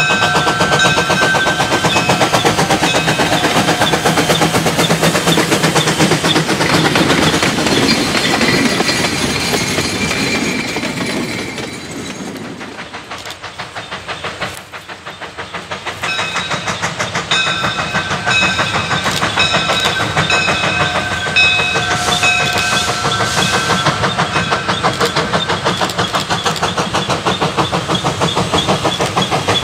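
Two-foot-gauge steam locomotive working hard, its exhaust chuffing in a rapid steady rhythm. The sound drops away about halfway through while the train is far down the line, then builds again as it steams back toward the listener.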